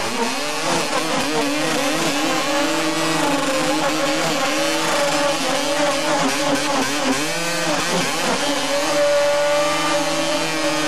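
Dirt bike engine held at high revs during a burnout, its rear tyre spinning against the pickup's bed. The engine note wavers constantly as the throttle is worked, dips briefly and climbs back about two-thirds of the way through, then settles into a steadier high note.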